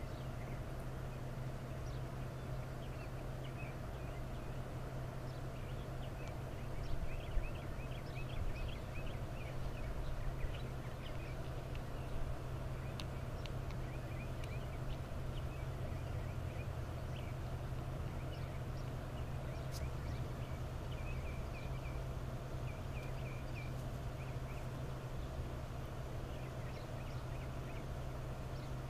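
Outdoor ambience: a steady low hum with scattered faint, short high chirps, thickest in the first half and again about three quarters of the way through.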